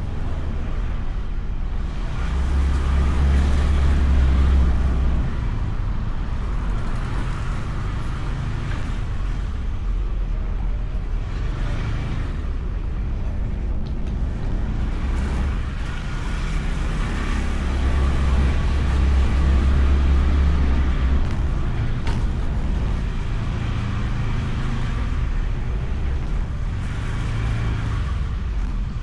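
Honda Beat scooter being ridden: a steady engine and road rumble mixed with wind buffeting the bike-mounted camera's microphone. It swells louder twice for a few seconds.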